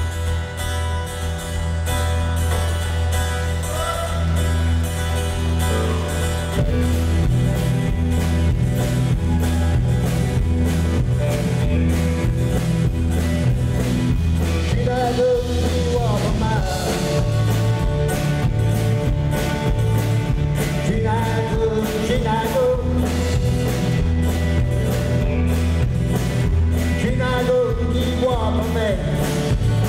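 Live band playing a song on acoustic guitar, electric bass and drums. The full band comes in louder about six seconds in, and a man sings over it from about halfway through.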